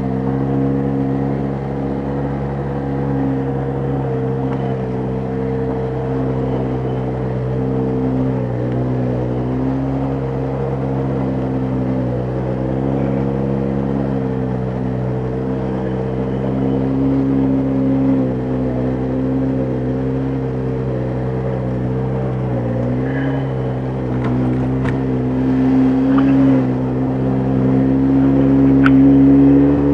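ATV engine running under way over rough ground, its pitch dipping and picking up again several times as the throttle is eased and reopened, and climbing near the end. A few light knocks in the second half.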